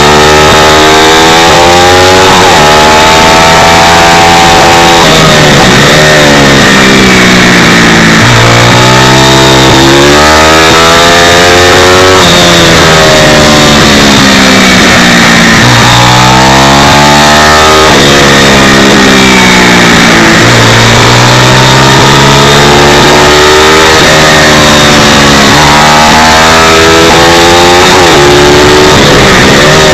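Pit bike's single-cylinder engine at racing speed. Its pitch climbs in runs of a few seconds as it revs out, then falls away at each shift or corner, several times over.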